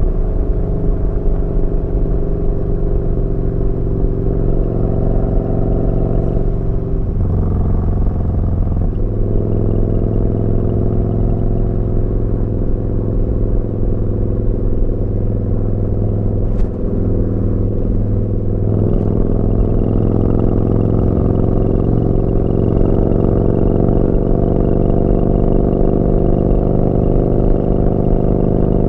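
Yamaha Bolt's V-twin engine running through a Vance & Hines slip-on exhaust while riding. Its note shifts abruptly about seven seconds in and again around nineteen seconds, then slowly rises in pitch as the bike picks up speed.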